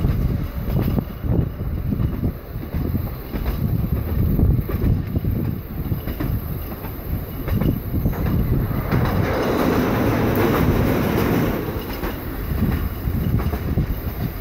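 Electric tram running along rails, its wheels clicking and rumbling over the track, with wind buffeting the microphone on the open top deck. The running noise grows louder and fuller for a few seconds past the middle.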